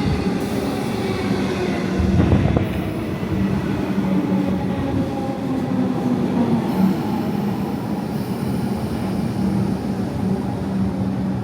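Suburban passenger train running: a steady rumble with a low hum and a faint, gently falling whine, and a brief louder clatter about two seconds in.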